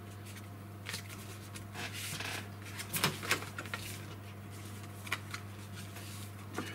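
Purple cardstock being folded along its score lines and smoothed flat by hand: scattered brief rustles and slides of paper, the busiest around the middle, over a steady low hum.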